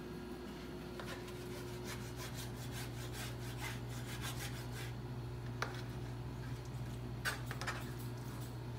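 A kitchen knife sawing through raw meat on a cutting board: quick repeated rasping strokes, several a second, with two sharper knocks of the blade on the board later on. A steady low hum runs underneath.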